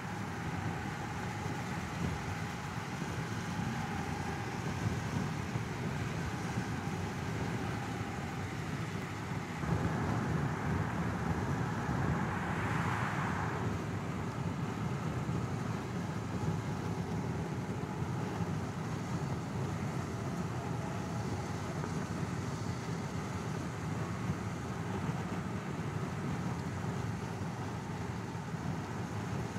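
Road noise inside a moving car: a steady low rumble that swells and brightens for a few seconds about ten seconds in.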